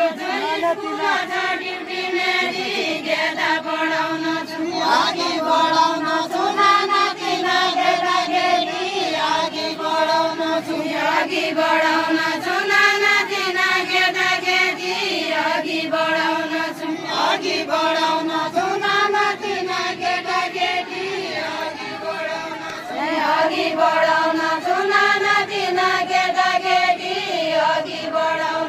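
Group of women singing a deuda song together in unison, repeating a short chant-like melodic line in phrases about two seconds long.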